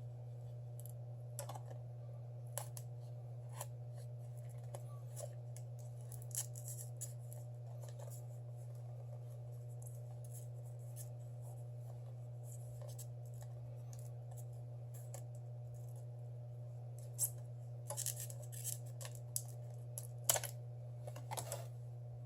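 Faint steady low hum with scattered small clicks and scratches of hand tools being worked on a phone, the clicks coming thicker in the last few seconds.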